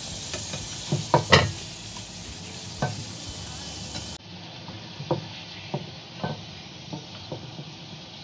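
Potato slices frying in hot oil in a nonstick pan, a steady sizzle. A slotted spatula clicks and scrapes against the pan as the slices are lifted out, with three sharp knocks close together about a second in.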